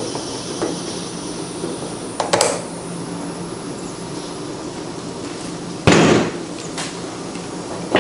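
Handling noise from a push lawn mower on a folding table: a short sharp click about two seconds in, then a loud thud about six seconds in as the tilted mower is set back down on its wheels.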